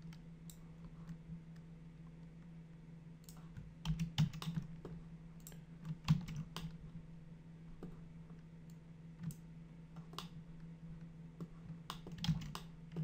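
Scattered computer keyboard keystrokes and mouse clicks, in small clusters, over a steady faint low hum.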